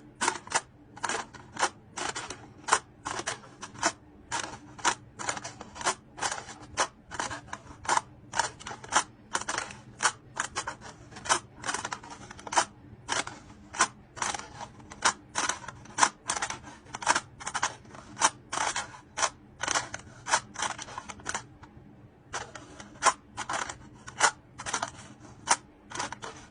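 Slime being pressed and poked, giving crisp popping clicks about twice a second, with a short pause near the end.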